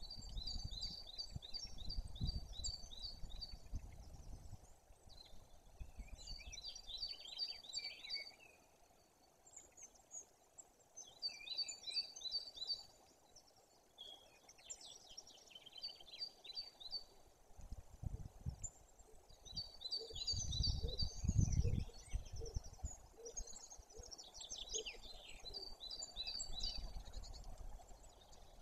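Small songbirds singing, short trilled phrases repeated every few seconds. Low rumbles of wind on the microphone come and go and are loudest about two-thirds of the way through.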